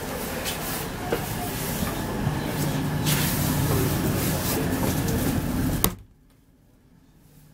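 Running noise inside a Class 319 electric multiple unit's carriage, a steady rumble with knocks and rattles. About six seconds in comes a sharp bang, and the noise cuts off abruptly to near quiet.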